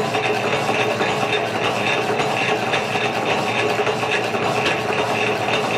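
Metal lathe running while a cutting tool machines a spinning metal part: a steady cutting noise with a constant whine.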